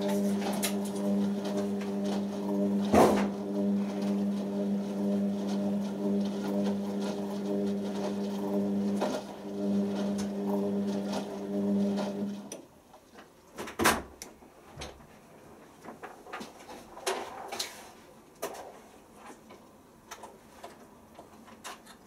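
Beko WM6103 washing machine early in its wash cycle: a steady, low-pitched mechanical hum with a sharp knock a few seconds in, stopping abruptly about twelve seconds in and leaving scattered knocks and clicks.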